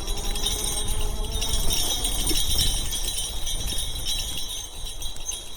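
A continuous light metallic jingling rattle from a folding e-bike riding over bumpy ground, over a steady low wind rumble.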